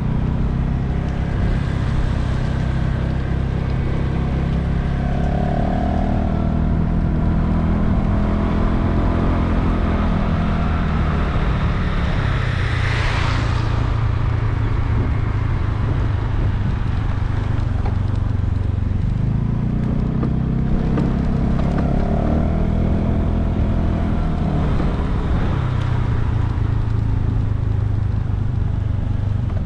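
Honda Vision 110 scooter's single-cylinder four-stroke engine running on the move, its pitch rising and falling with the throttle, under steady road and wind noise. A brief whoosh swells and fades about halfway through.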